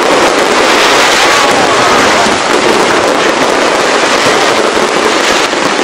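Large fireworks display with many aerial shells bursting and crackling at once, a dense, steady barrage of pops and crackles with no pauses.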